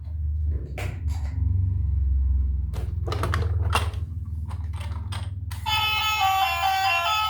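Battery-powered toy vehicle's sound effects: a low rumble with plastic clicks and knocks. About five and a half seconds in, an electronic tune of stepping beeping notes starts.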